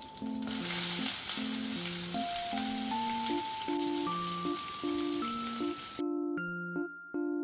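Food sizzling as it fries in a pan, an even hiss that cuts off suddenly about six seconds in, over soft background piano music.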